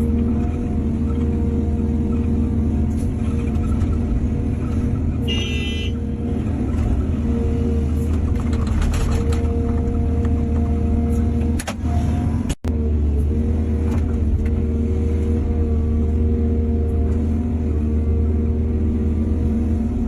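Excavator's diesel engine running steadily with a constant low hum. There is a brief high squeal about five seconds in, a few light clicks soon after, and a sudden short break in the sound past the middle.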